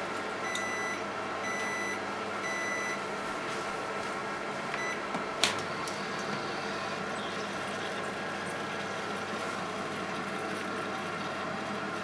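Toshiba microwave oven beeping three times, about a second apart, to signal the end of heating. About five seconds in, the door latch releases with a sharp click as the door is opened, over a steady hum.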